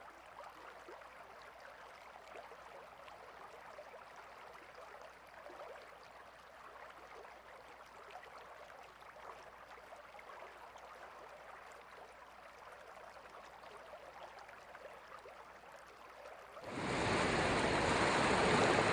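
Faint crackling, hissing water sound for most of the stretch, then near the end a much louder, steady rushing of sea water and small waves starts abruptly.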